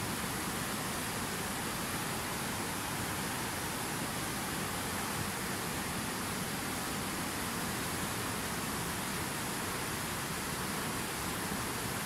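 Fast mountain river rushing over rocks in whitewater rapids: a steady, unbroken rush of water noise.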